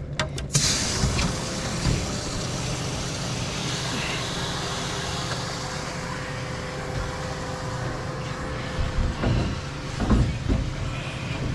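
A boat motor running steadily under a constant hiss, with a few sharp knocks near the end.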